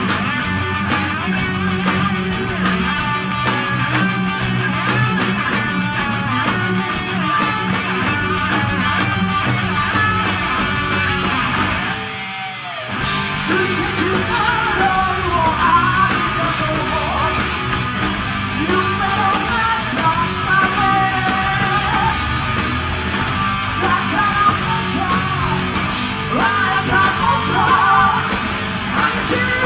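Heavy metal band playing live: distorted electric guitars and drums with yelled singing. The music drops out briefly about twelve seconds in, then comes back with bending melody lines.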